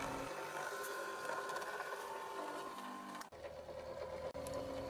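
Home-built dust-collector blower, a 180 W electric motor spinning a plywood fan wheel, running with a steady hum and whine made of a few constant tones. About three seconds in the sound changes abruptly, losing its hiss, while the motor tones carry on.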